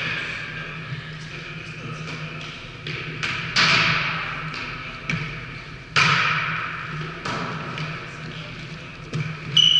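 A volleyball being struck, echoing in a large gymnasium: two sharp smacks about two and a half seconds apart, each ringing out in the hall, with a few lighter taps between.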